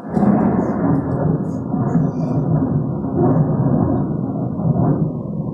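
A recorded thunder sound effect played over the sound system: a continuous deep rumble of thunder that eases off slightly near the end.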